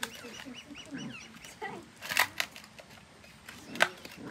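A litter of puppies eating together from a metal bowl: scuffling and chewing with short whines, and two sharp knocks, about two seconds in and near the end, that are the loudest sounds. A quick run of high chirps sounds in the first second and a half.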